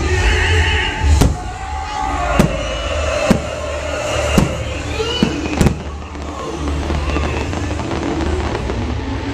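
Fireworks bursting: about six sharp bangs in the first six seconds, over a steady low rumble and the show's music.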